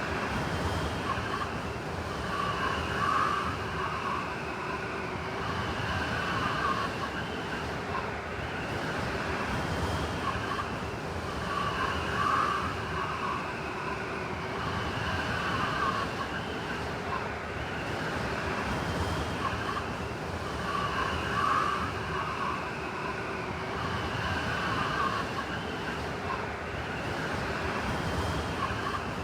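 Blizzard wind howling and whistling: a steady rush with wavering whine-like tones that swell and fade in gusts every few seconds.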